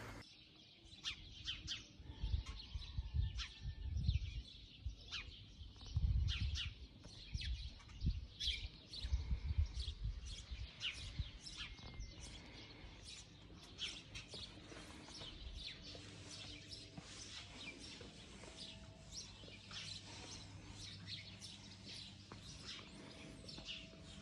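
Small birds chirping, many short, sharp calls repeated throughout. Low rumbling bumps come and go underneath, loudest in the first ten seconds.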